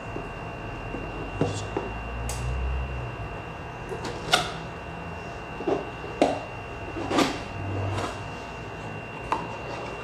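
Cardboard keyboard box being handled and opened by hand: irregular taps, knocks and scrapes on the cardboard, with a couple of low sliding rumbles as the lid moves. A thin steady high whine sits underneath.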